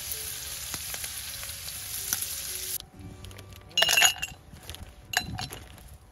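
Food sizzling on a grill over a wood fire, a steady hiss that cuts off about three seconds in. Then ice clinks into a glass mug: a loud clatter about four seconds in and another clink a second later.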